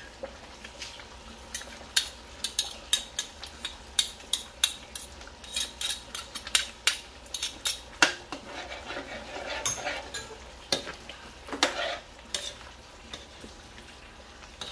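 Metal spoon stirring thick, bubbling tomato spaghetti sauce in a metal wok, with irregular clicks and scrapes of the spoon against the pan over a steady low hiss. The clicks thin out near the end.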